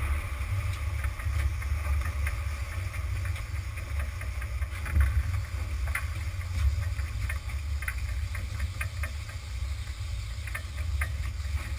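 Sportfishing boat's engine running low and steady, with scattered light clicks and knocks over it.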